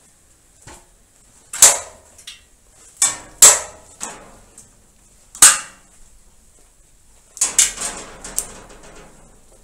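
Sharp clattering knocks of an insect net's rim and pole striking a corrugated plastic roof panel and its frame: one hard hit about a second and a half in, two close together around three seconds, one more past five seconds, then a quick flurry of smaller knocks near the end.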